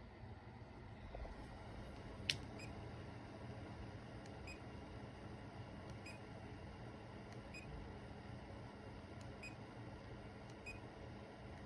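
Faint steady low noise with one sharp click about two seconds in and faint soft ticks roughly every second and a half.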